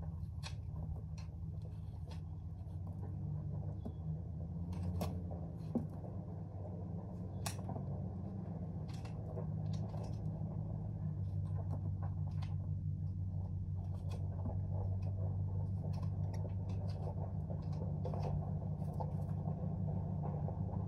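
Scattered light clicks and scrapes of hoof care on a horse's hooves, over a steady low hum.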